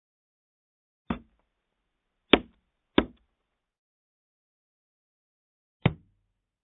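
A hand stamp banged down four times, each stroke a short, sharp knock. One comes about a second in, two come close together just past two and three seconds, and the last comes near the end. The first is the softest.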